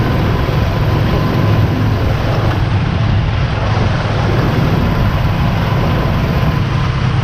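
A motorbike riding at speed: its engine running under a steady, loud rush of wind noise on the microphone.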